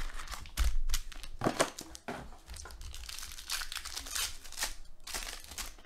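Foil-wrapped Panini Contenders Draft Picks card packs crinkling and crackling as they are pulled from their cardboard box and torn open by hand, with a dull thump a little under a second in.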